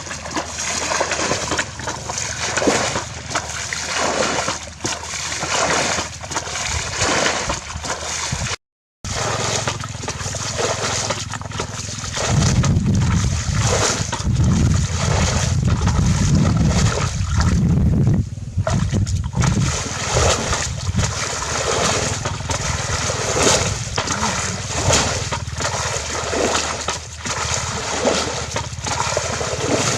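Shallow water splashing and sloshing in irregular strokes as someone wades and catches fish by hand.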